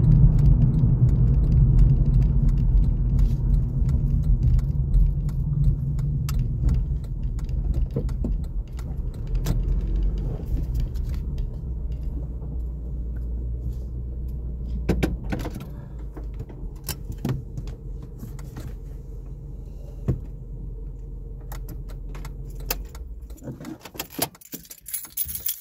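Car road noise heard from inside the cabin: a low rumble that weakens steadily as the car slows and rolls onto a gravel shoulder, with scattered clicks and rattles. Near the end the rumble stops and a jingle of keys and metal clinks follows.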